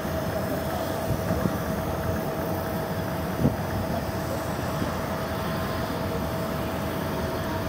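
Distant Boeing 737 jet engines on final approach: a steady rumble with a faint steady whine, and one short knock about three and a half seconds in.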